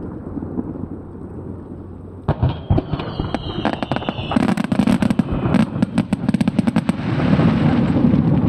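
Aerial fireworks display. After a low rumble, about two seconds in come sharp shell bangs and a few high whistles sinking slightly in pitch, then a quick run of sharp cracks, building to a loud continuous rumble of bursts near the end.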